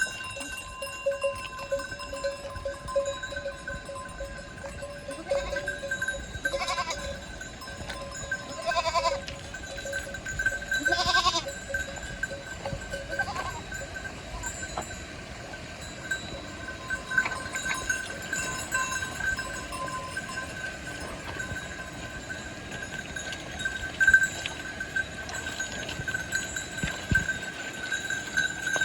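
Bells on a flock of goats ringing continuously as the animals move, with a few goat bleats about 7, 9 and 11 seconds in.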